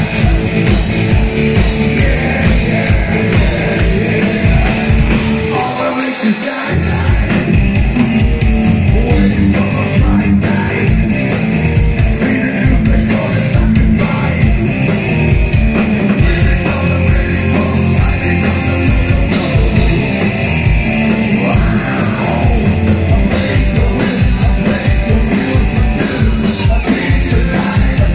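Live metal band playing loud: electric guitars, bass and a steady pounding kick drum under a singer's vocals. The bass and drums drop out briefly about six seconds in, then the full band comes back.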